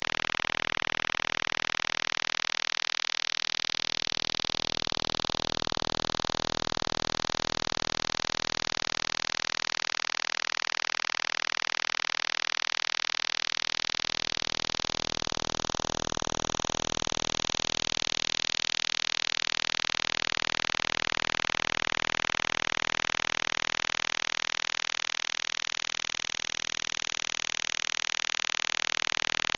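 Shortwave radio signal received through a web software-defined radio: a harsh, continuous buzz whose tone slowly sweeps and shifts every several seconds.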